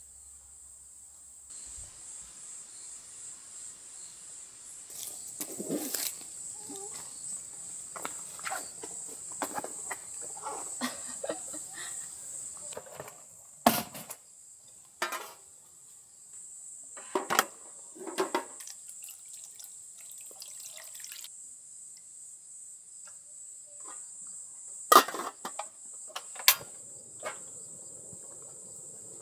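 Insects trilling steadily in one high, even tone. Over it comes a run of clicks, knocks and clatter as camp cooking gear is handled: a portable gas stove is taken from its case and a lidded aluminium pot is set on it. A few sharp knocks stand out about halfway through and again near the end.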